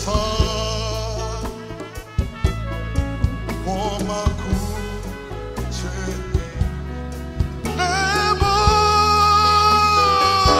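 Live gospel band with a singer holding long notes with vibrato over bass and drums. The held note swells near the end.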